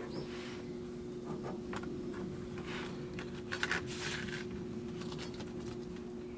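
Light metallic clinks and short scrapes, most of them about three and a half to four and a half seconds in, over a steady low hum.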